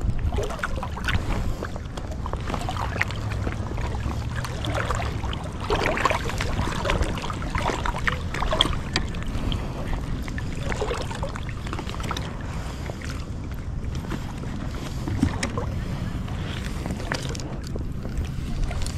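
Small waves lapping and splashing irregularly against an inflatable float tube, over a steady low rumble of wind on the microphone.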